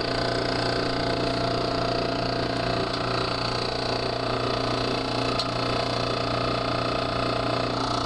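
Refrigerant recovery machine running with a steady hum, its compressor drawing liquid refrigerant out of an air-conditioning system into a recovery tank.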